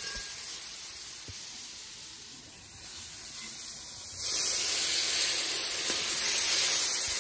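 Curry frying in a hot pot hisses and steams as water is poured in. The hiss eases off, then surges loudly about four seconds in as more water is poured onto it.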